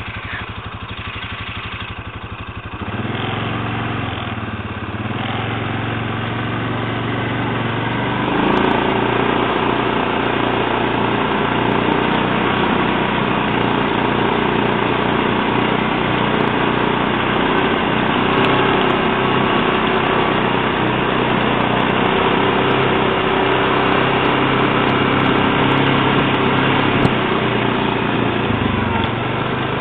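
Quad bike (ATV) engine heard from the rider's seat: idling, then rising about three seconds in as the quad moves off and running louder and steady under way from about eight seconds in, easing off slightly near the end.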